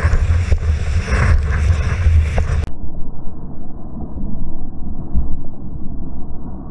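Wind buffeting the microphone in low rumbling gusts, with the rush of water under a planing windsurf board. About 2.7 s in the sound abruptly turns muffled, its upper part cut away, leaving a dull low rumble.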